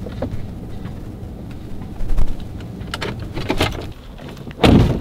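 Steady low rumble of a Ford F-150 heard from inside the cab while driving, with a few light knocks. Near the end the truck's door gives one loud clunk as it is worked by hand.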